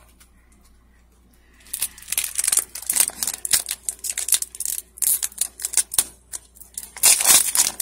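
Foil wrapper of a Pokémon card booster pack crinkling in the hands as it is worked open, a rapid run of crackles starting about two seconds in.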